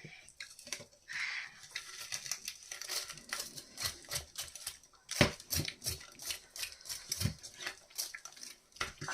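Plates and cutlery clinking and tapping during a meal: a run of irregular light clicks and knocks, with a couple of sharper knocks about five seconds in and near the end.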